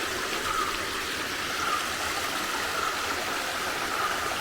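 Steady rush of water from a small waterfall and the shallow rocky stream below it.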